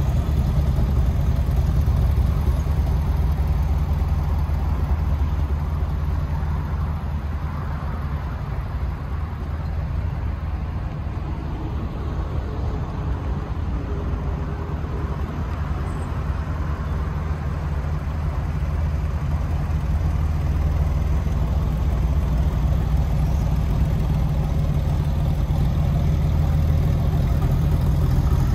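Porsche 993's air-cooled flat-six engine idling steadily. It is a little louder from behind the car at the exhaust and a little softer from the front.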